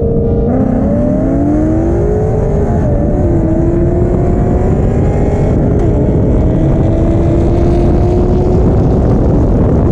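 Stroked 4.6 three-valve Ford Mustang V8, with Comp Cams Stage 3 cams and long-tube headers, at wide-open throttle alongside a Camaro SS's LS3 V8. The engine note climbs with the revs, drops at an upshift about three seconds in and again about six seconds in, then climbs slowly, over heavy wind rush.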